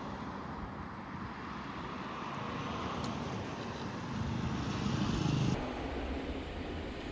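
Outdoor street ambience with a road vehicle going by: a steady background rush that swells about four seconds in and breaks off abruptly a little after five seconds.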